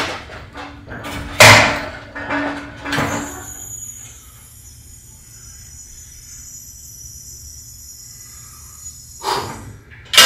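An old 75-gallon gas water heater's steel tank being rocked and walked across its platform by hand: a run of heavy knocks and scrapes in the first few seconds, a quieter stretch, then two more thumps near the end.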